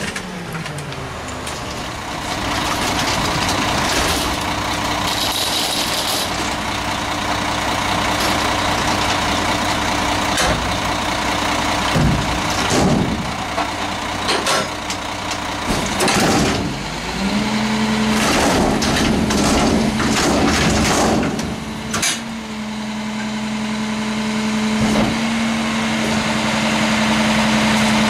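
Crane Carrier (CCC) refuse truck's diesel engine dropping from raised revs to idle as the McNeilus rear loader's packer cycle ends. About halfway there is a clatter of knocks and bangs as a wheeled trash cart is tipped into the hopper. About two-thirds through, the engine revs up again and holds steady to drive the packer's hydraulics.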